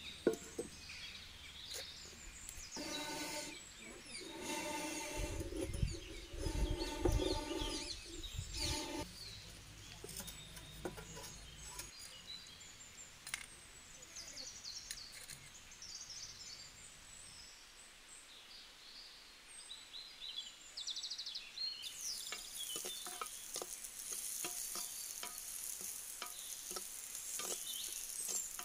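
A clay pot set down on a clay cookstove, with a loud, steady-pitched sound of unclear source a few seconds in. For the last third, cut pirandai (veldt grape) stems sizzle in hot oil in the clay pot while a steel spoon stirs them, scraping and clicking against the clay.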